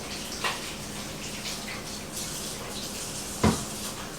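Kitchen tap running, water splashing into the sink, with one sharp knock about three and a half seconds in.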